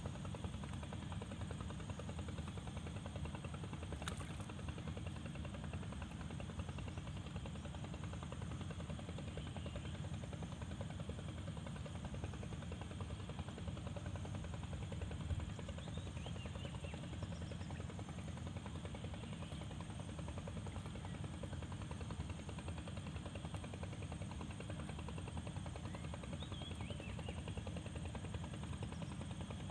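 Steady low rumble, with one sharp click about four seconds in and a few faint high chirps.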